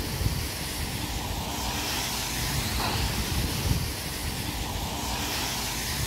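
Vehicle driving on a wet road: steady road noise, a low rumble under a constant tyre hiss.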